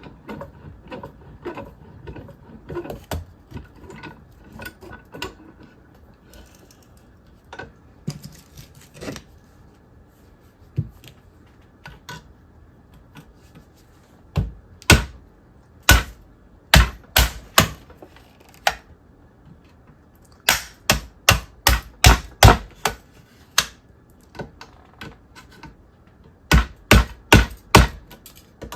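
A chisel being struck to chip open the plastic top cap of a TV switchbox held in a vise: light tapping and scraping at first, then sharp strikes in quick runs of several blows, the loudest in the second half.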